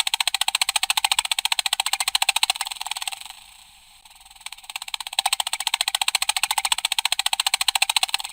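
Very rapid computer keyboard typing, a fast, even clatter of key clicks in two runs of about three to four seconds, broken by a pause of about a second near the middle. The sound is thin, with no bass.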